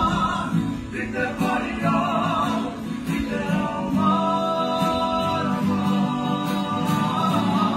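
A kapa haka group singing a waiata together in many voices, with a few long held notes in the middle.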